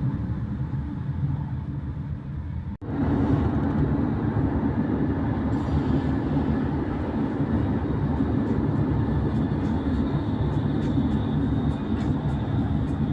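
Passenger train running on the rails with a steady low rumble. It cuts out for a moment about three seconds in, then comes back louder. Faint regular clicks come in near the end.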